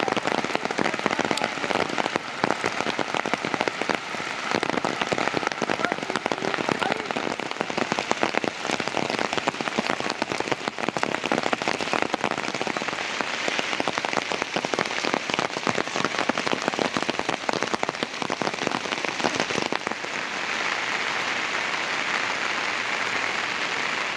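Heavy rain falling, a dense, crackling patter of drops striking a surface. About twenty seconds in it changes to a smoother, steadier hiss.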